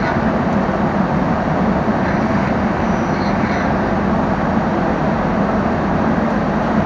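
Biesse Rover A 5-axis CNC router's spindle running and cutting a wooden workpiece: a steady, loud machine noise with a low hum underneath.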